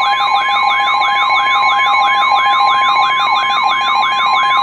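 NOAA Weather Radio warning alert tone: a steady high tone and a second, lower steady tone, with a siren warbling up and down about four times a second over them, signalling that a warning broadcast follows.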